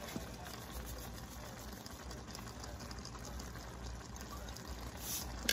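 Pot of Haitian goat legume stew simmering, a soft, steady bubbling, with a short hiss near the end.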